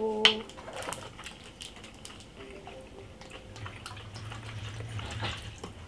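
Makgeolli poured from a plastic bottle into a metal makgeolli cup, the liquid running and splashing into the cup for a couple of seconds in the second half, after a few light clicks and taps from handling the bottle and cups.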